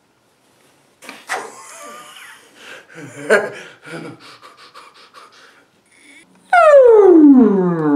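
A man panting and grunting with effort as he forces his way through crackling black plastic sheeting, with a run of quick breaths near the middle. About six and a half seconds in comes a loud, long yell that drops steeply in pitch and then holds low.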